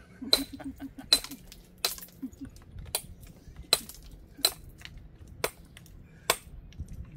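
A hammer striking stone: about eight sharp, ringing blows at a steady pace, a little under a second apart, as a mason trims and dresses stones for a dry stone wall.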